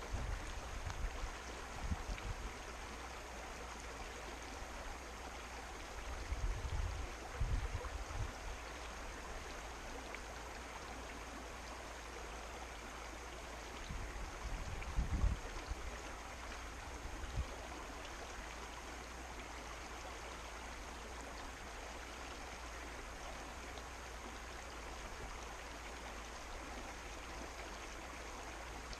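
Mountain creek flowing steadily, an even rush of water, with a few brief low rumbles on top.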